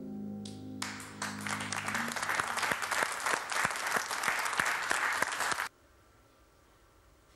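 The last chord of a concert harp ringing out and fading, overlapped about a second in by applause, which stops suddenly near the end.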